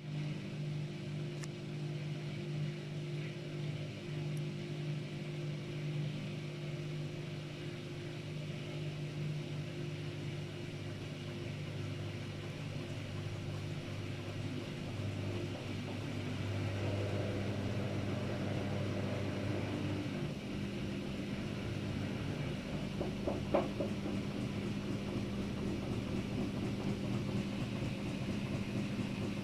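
Daewoo DWD-FT1013 front-loading washing machine spinning in test mode with an unbalanced load: a steady motor hum whose pitch shifts as the drum speed changes, getting louder about halfway through. A brief knock sounds about three-quarters of the way in.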